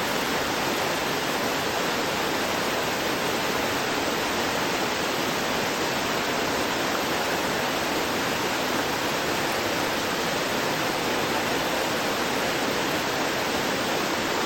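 Water of a small rocky waterfall gurgling and rushing over stones in a steady, unbroken stream.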